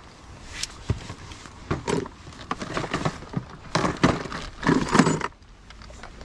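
Irregular clicks, knocks and scrapes of fishing tackle being handled: a hard plastic tackle case opened and a clear plastic lure box lifted out, with the louder scraping and knocking about four to five seconds in.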